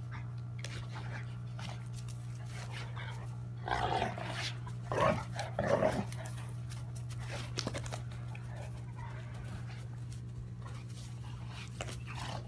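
Two Cane Corso dogs play-wrestling, letting out a few short play growls about four to six seconds in, over a steady low hum.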